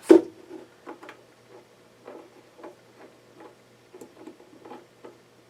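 Light, irregular clicks and taps of a metal hose fitting being worked by hand onto the compressor's threaded fitting, trying to get the threads to catch.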